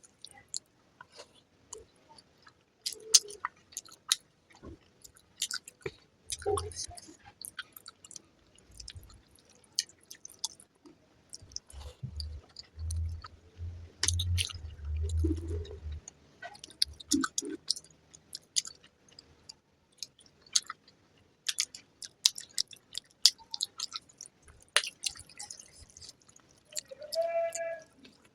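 Close-miked chewing and wet mouth clicks of someone eating fried rice with egg curry, in irregular smacks with pauses between mouthfuls. A brief pitched tone sounds near the end.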